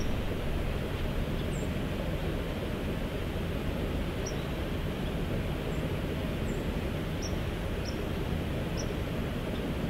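Steady rushing outdoor background noise, heaviest in the lows, with several faint, short high bird chirps scattered through it.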